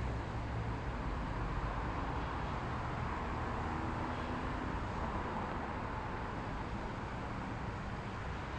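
Steady road traffic noise, with a low rumble easing off about a second in.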